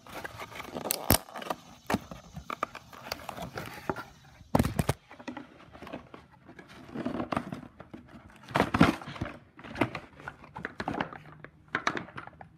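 Cardboard packaging rustling and scraping as the edger is worked out of its box, with irregular knocks and two louder thumps, one about four and a half seconds in and one near nine seconds.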